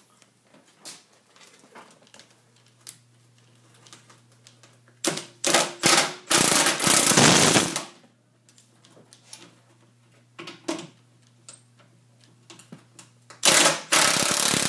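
Power tool on the strut's bolts running in two loud bursts, one of about three seconds near the middle and a shorter one near the end, with scattered clicks and knocks of metal parts between.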